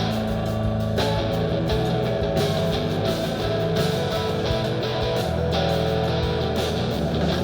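A live band plays an instrumental break with no singing: guitar over drums and bass guitar, with steady drum hits.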